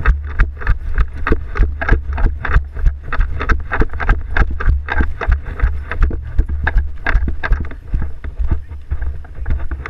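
Quick footsteps, about three a second, thudding and crunching on the ground, over a steady low rumble of wind and movement on the microphone.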